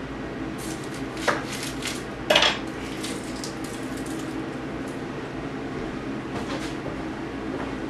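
Kitchen clatter of a knife and dishes: a few light clinks and knocks, the two loudest about a second and two and a half seconds in, over a steady hum.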